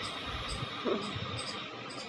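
Ujjayi pranayama breathing: a steady, soft hiss of air drawn slowly through a narrowed throat, with a short low sound about a second in.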